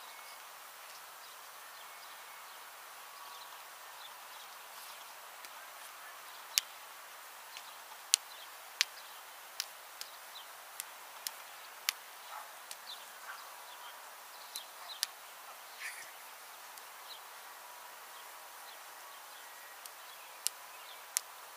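Quiet open-field ambience: a faint steady hiss with a few faint bird chirps, broken from about six seconds in by a scattering of sharp, irregular clicks.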